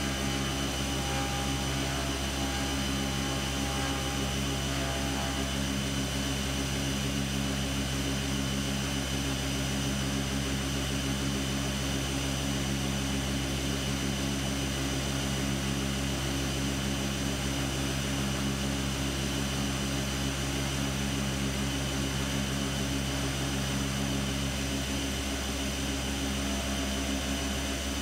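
Fadal CNC vertical mill running steadily as its end mill cuts an aluminum part under flood coolant: an even machine hum with several steady tones over the hiss of the spraying coolant.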